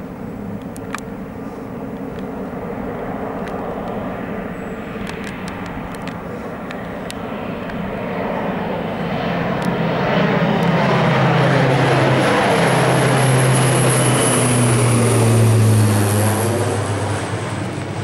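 Pilatus PC-12 single turboprop (Pratt & Whitney PT6A) climbing out at takeoff power and passing overhead. The propeller drone grows steadily louder, and a high turbine whine joins about ten seconds in. The sound sweeps as the aircraft goes over, is loudest around fifteen seconds in, then begins to fade near the end.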